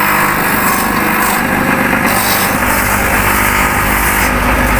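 Electric sanding wheel running steadily while a shoe sole is pressed against it, with two harsher rasping stretches, about a second and a half in and near the end, as the sole is ground to roughen it for gluing on a rubber sole.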